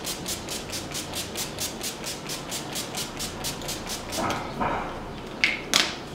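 Fine-mist pump bottle of makeup setting spray (Absolute New York Spritz to Fix) being pumped rapidly, about five or six quick sprays a second, stopping a little before four seconds in. Two separate short sprays follow near the end.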